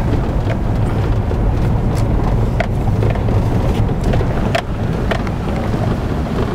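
Cabin noise of a four-wheel-drive vehicle heading down a steep dirt road: a steady low rumble of engine and tyres on the unpaved surface, with scattered light clicks and rattles.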